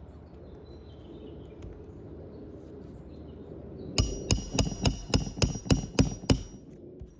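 A hammer driving a new roofing nail into an asphalt shingle: about nine quick strikes, roughly four a second, with a metallic ring, starting about four seconds in.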